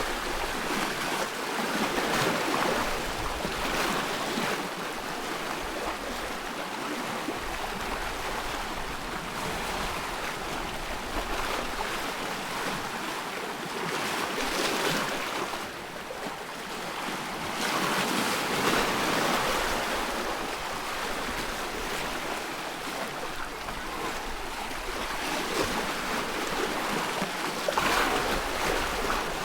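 Waves on a loch washing in, in irregular swells every few seconds, with wind.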